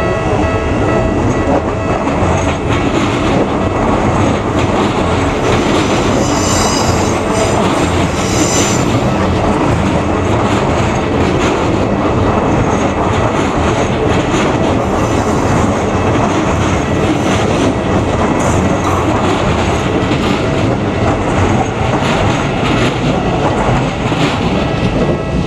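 A train passing close by, its wheels clattering over the rail joints with some squeal. The sound stays loud and steady for the whole time.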